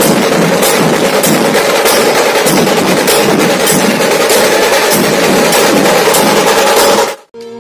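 Dhol-tasha ensemble of big barrel dhol drums, tasha snare drums and brass hand cymbals playing a loud, dense beat with regular accents about twice a second. It cuts off suddenly about seven seconds in, and the first tones of electronic music follow.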